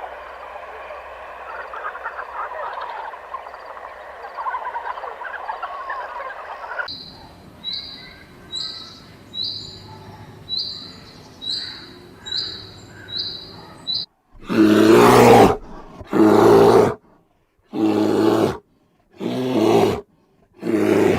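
A run of animal sounds: a stretch of rough, noisy sound, then a short high chirp repeated about once a second for several seconds, then four loud calls, each about a second long.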